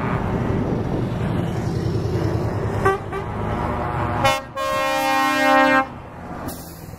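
Truck tractor units, a Scania among them, driving past with their diesel engines running. A short horn toot comes about three seconds in, then a longer truck horn blast of about a second and a half a little after four seconds.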